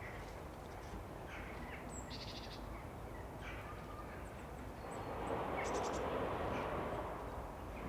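Birds calling in short, scattered calls over steady outdoor background noise. From about five seconds in, a louder, steady rushing noise sets in.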